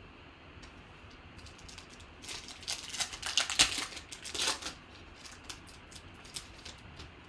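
Foil wrapper of a football trading-card pack being torn open and crinkled: a flurry of crackles lasting about two and a half seconds, loudest near the middle, followed by a few light ticks as the cards are handled.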